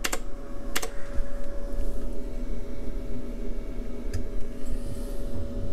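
Amplitrex AT1000 tube tester running with a steady whir, a hum and a steady tone. A couple of sharp keypad button clicks come near the start, and one more click about four seconds in.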